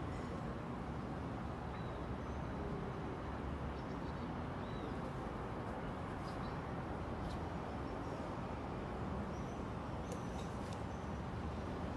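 Steady outdoor background noise, a low rumble and hiss, with a few faint short high chirps scattered through it.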